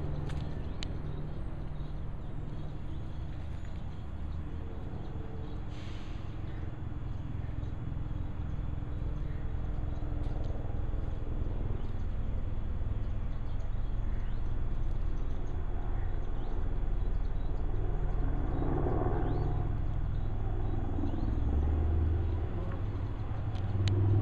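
A low, steady rumble that grows louder through the second half, with a brief broader rush near the end.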